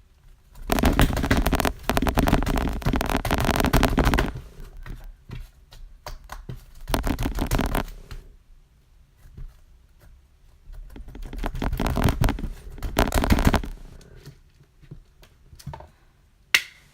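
Slime being squeezed and worked by hand, giving three long runs of rapid crackling and popping clicks, with scattered pops between them and one sharp pop near the end.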